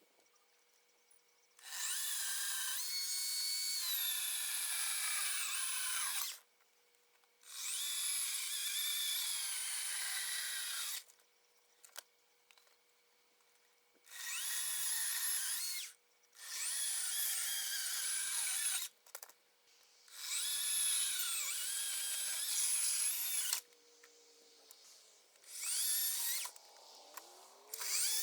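Cordless GreenWorks 40-volt electric chainsaw run in about six separate bursts of a few seconds each, with short pauses between them, cutting firewood. Its high motor whine rises at the start of each burst, sags in places and falls away as the trigger is released.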